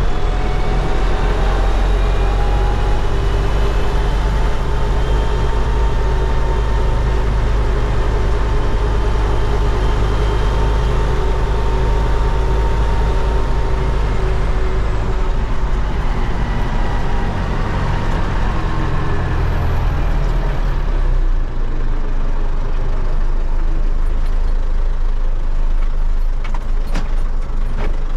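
MTZ-80 tractor's four-cylinder D-243 diesel running under way, its engine note slowly rising and falling. About three-quarters of the way through it drops to a softer, lower note as the engine eases off.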